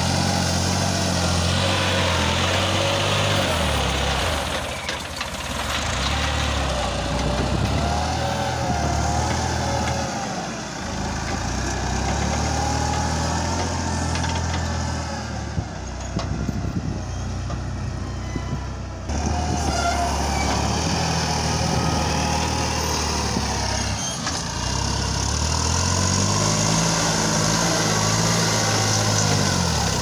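Farm tractor's diesel engine working a front loader through sand, its revs rising and falling again and again as the bucket pushes and lifts. A wavering whine runs above the engine.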